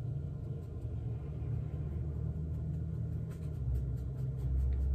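A low steady rumble, growing slightly louder near the end, with faint soft ticks in the second half.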